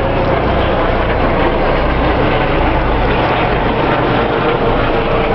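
Steady outdoor ambience of a busy city square: a loud, even wash of noise with a deep rumble that swells in the middle.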